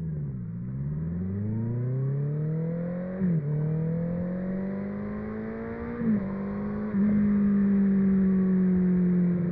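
2019 Honda CB650R inline-four through an IXIL Hyperlow XL exhaust, accelerating from a dip in revs. The engine note climbs with three short upshifts, about three, six and seven seconds in, then settles into a steady cruise.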